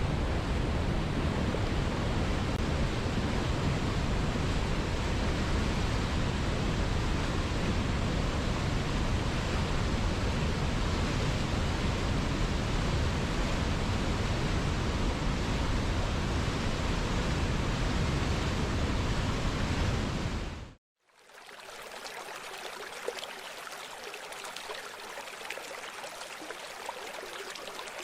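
Rushing river water, a steady, full rush with plenty of deep rumble, which fades out about twenty seconds in. After a brief silence a quieter, lighter stream of running water takes over, without the deep rumble.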